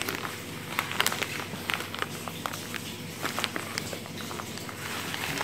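Crinkly plastic bag crackling as breadcrumbs are shaken out of it onto a plate, in many short irregular crackles and ticks.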